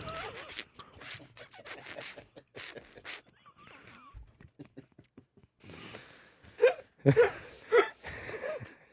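A person imitating DJ record scratching with the mouth: a run of quick rasping strokes, fainter in the middle, then louder breathy bursts with short pitched squeaks near the end.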